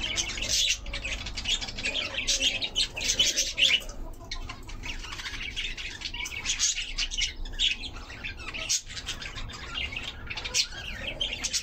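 Birds in a chicken and pigeon shed chirping and squawking: a dense, continuous chorus of short high calls.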